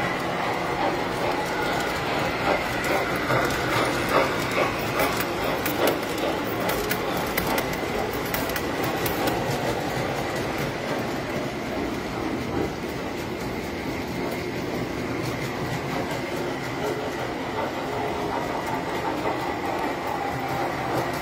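Tinplate toy trains running on metal track: a steady mechanical running noise with a faint whine, and a rapid clatter of wheels clicking over the rail joints, busiest in the first half.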